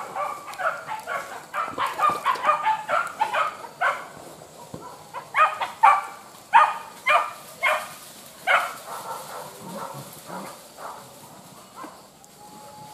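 Hunting dogs barking in quick, repeated barks, loudest in the middle and dying away near the end: dogs on the chase of a wild boar.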